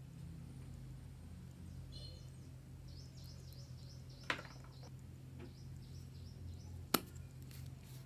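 Two sharp clicks or knocks, about three seconds apart, over a steady low hum.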